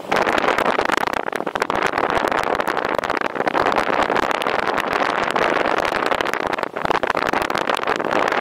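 Airflow of paraglider flight rushing and buffeting over the microphone, a steady noisy rush with rapid flutter that eases briefly once, late on.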